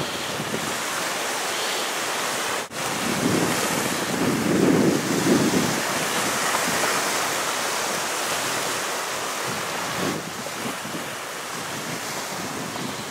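Strong wind buffeting the microphone over choppy water washing against a marsh bank, in gusts; the sound cuts out for an instant about three seconds in.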